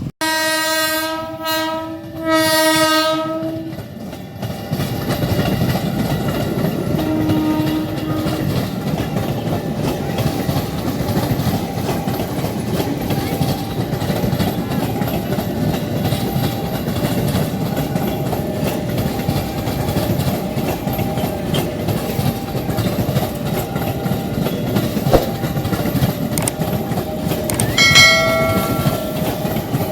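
Train horn sounding two long blasts, then a train running past at the level crossing with a steady rumble and clatter of wheels on the rails. A short horn note sounds about seven seconds in, and a brief high-pitched tone near the end.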